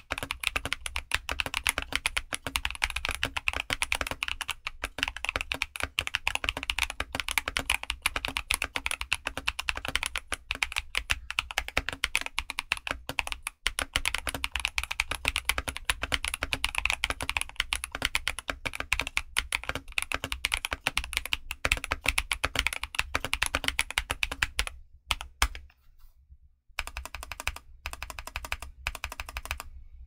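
Fast, continuous typing on a modded Redragon Shaco Pro mechanical keyboard with Epo Budgerigar switches, LDPE and PE foam inside, and YMDK Godspeed PBT keycaps. The keystrokes stop for about two seconds near the end, then a few scattered keypresses follow.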